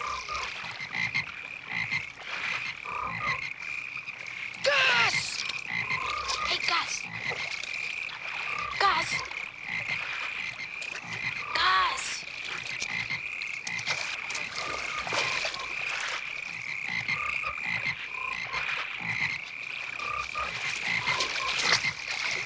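Chorus of many frogs croaking, with a steady high trill running throughout and a few louder calls standing out; splashing in pond water.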